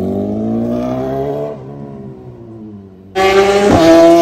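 Inline-four superbike with an SC-Project exhaust accelerating hard, its engine note climbing. About three seconds in, a louder full-throttle run starts abruptly, with a quick break in the note shortly after, like a gear change.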